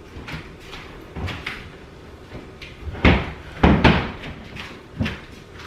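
A run of knocks and bangs like cupboard or appliance doors being shut while food is got ready, with the loudest strikes about three to four seconds in and another near the end.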